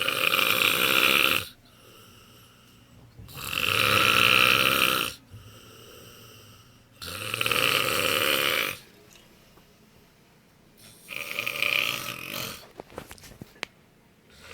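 A man snoring loudly in his sleep: four long snores, one about every three and a half to four seconds, the last one weaker and more ragged, with a few faint clicks after it.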